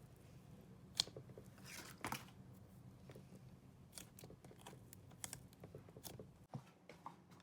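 Soft slime being pressed and stretched by hand, giving faint scattered sticky clicks and crackles.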